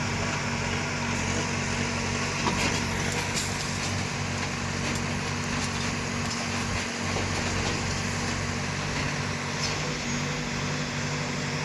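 Engine of heavy earth-moving machinery running steadily at a constant speed, with a continuous low hum.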